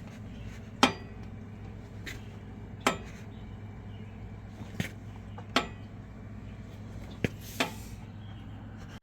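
Sharp metallic pops from a Yamaha Road Star motorcycle as it is rolled backwards, several of them at irregular intervals a second or two apart.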